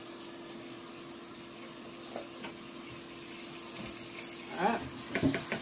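Flour being sifted through a fine mesh sieve into a stainless steel bowl: a soft, steady hiss with a low hum underneath and a couple of faint taps.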